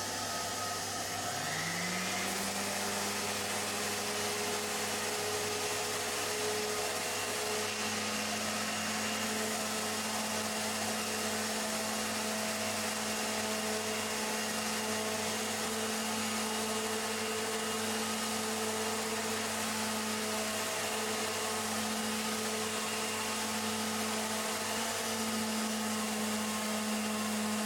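Erbauer ERO400 orbital sander with an 80-grit disc running on a wooden handrail, taking off old varnish. The motor spins up with a rising whine in the first couple of seconds, runs steadily over a gritty hiss, then stops suddenly.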